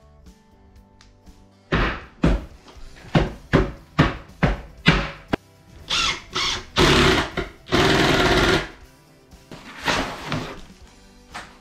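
Background music over renovation work: a string of sharp knocks, then two sustained bursts of a power tool running, about six and eight seconds in.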